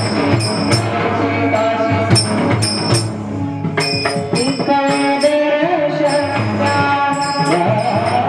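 Marathi bhajan music: small metal hand cymbals (taal) striking in a steady rhythm over a sustained melodic accompaniment, with a melody line gliding in pitch in the second half.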